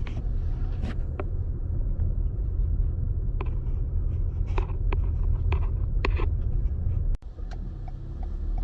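Car driving, heard from inside the cabin: a steady low road rumble with scattered small clicks and taps.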